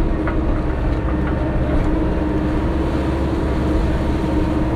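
Caterpillar backhoe loader's diesel engine running steadily with a constant droning tone, as the bucket is dropped to start digging.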